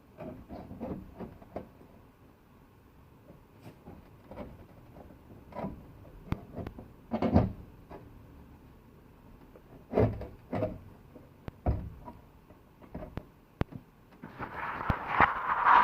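Irregular knocks and clunks of a door window glass and its metal track being worked down into the door slot of a 1938 Ford, with a few louder clunks and a longer scraping, sliding sound near the end.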